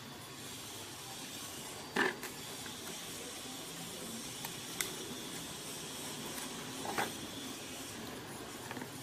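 Three small clicks and knocks from the parts of an HTC mobile phone being handled during disassembly, the first, about two seconds in, the loudest, over a steady hiss.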